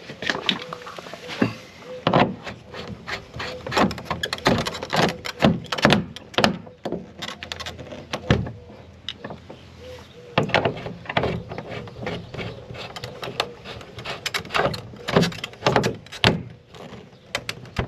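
Plastic resin shed wall panels and plastic bolts being fitted together: an irregular run of sharp clicks, taps and knocks.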